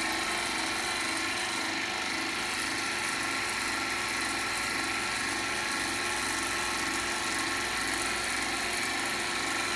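Vacuum pump of a wiped film distillation unit running, a steady mechanical drone with several constant tones that does not change.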